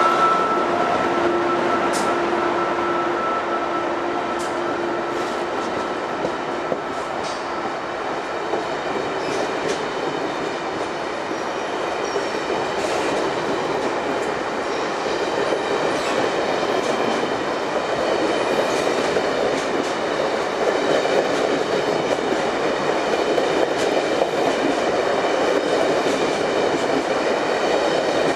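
Stainless-steel passenger train rolling past on the adjacent track: a steady rumble of wheels on rail with scattered clicks over the rail joints. A pair of steady tones fades out over the first several seconds, and the rumble grows a little louder in the second half.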